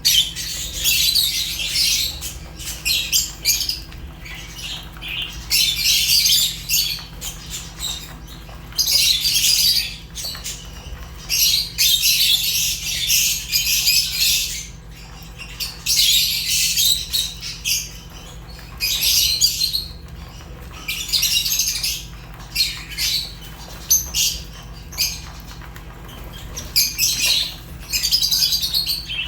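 Fisher's and peach-faced lovebirds chattering and squawking in shrill bouts of one to three seconds with short pauses between, over a faint steady low hum.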